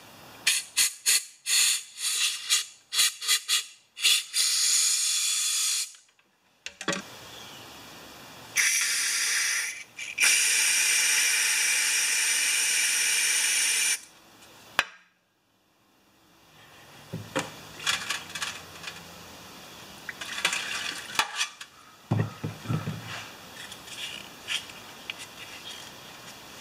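A compressed-air blow gun gives a quick run of short hissing blasts through a plugged Tecumseh carburetor body, clearing its blocked passages. Longer steady hisses of air and aerosol carburetor cleaner being sprayed into it follow. Light clicks of small parts being handled come over the last ten seconds.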